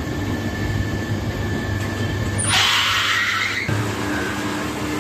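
A machine running steadily with a low hum, and a loud hiss that lasts about a second midway through.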